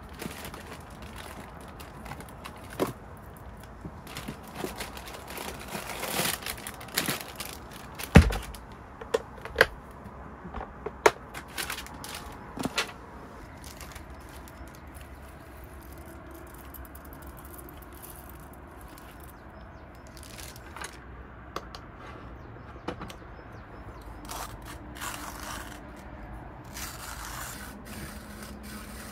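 Scattered clicks and knocks as items are handled and set down, with one loud thunk about 8 seconds in. Near the end a hand-cranked coffee grinder starts grinding beans, a soft rasping churn.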